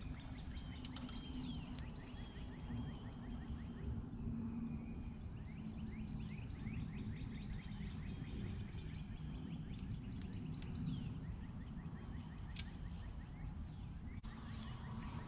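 Outdoor ambience: a steady low rumble with long trains of rapid, repeating high chirps and a few falling whistles over it.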